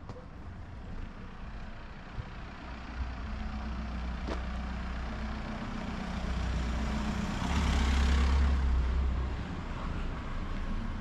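A motor vehicle approaching and driving past, its engine hum and tyre noise building to loudest about eight seconds in, then easing off.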